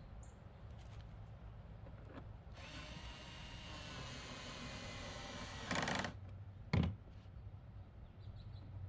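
Small cordless drill-driver running for about three and a half seconds, driving a screw into the plastic air tunnel, louder just before it stops. A single sharp thump follows about a second later.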